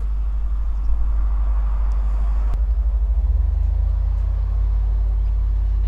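Deep, steady rumble of Merkava tanks' diesel engines running, with a single sharp click about two and a half seconds in.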